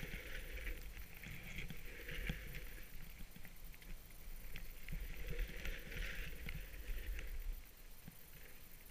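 Skis carving over groomed snow, a scraping swish that swells with each turn, over a low wind rumble on the microphone. It all gets quieter about three-quarters of the way through.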